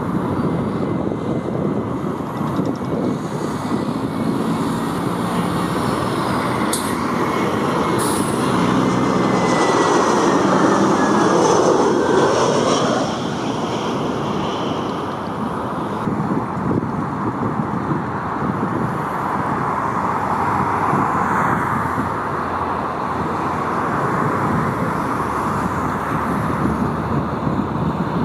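Narrow-body jet airliner passing, its engine whine slowly falling in pitch as it goes by and the jet noise swelling to its loudest about ten to twelve seconds in, over a steady rushing background.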